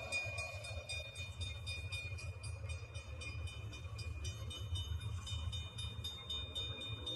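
Albany & Eastern Railroad excursion train rolling past, a steady low rumble with a steady high ringing tone and rapid even ticking above it.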